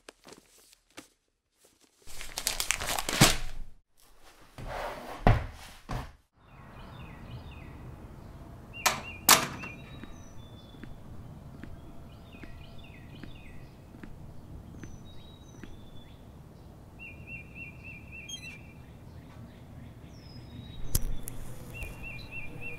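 Two bursts of paper rustling, then a quiet outdoor ambience with small birds chirping and trilling. Two sharp knocks come about nine seconds in, and a thump comes near the end.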